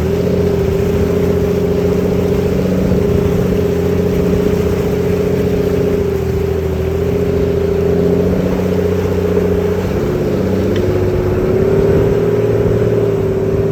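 Nissan Patrol 4WD's diesel engine running steadily under load, its pitch wavering slightly up and down.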